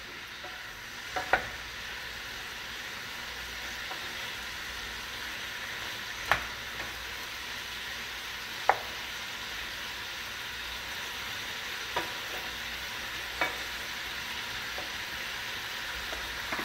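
Chicken breast strips sizzling in a hot frying pan, with a wooden spoon stirring them and knocking against the pan about five times.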